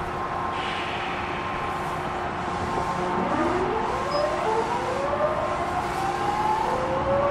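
Odakyu 1000 series train pulling away from a stop, heard from inside the car. About three seconds in, the VVVF inverter starts a whine of several tones rising together as the train accelerates, over a steady electrical hum.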